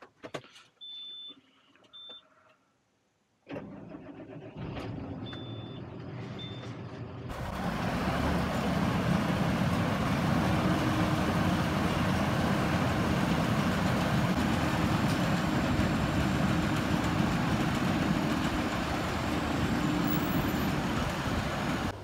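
A few clicks and short high beeps in the John Deere tractor's cab. Then, about seven seconds in, the tractor's engine running steadily and loudly.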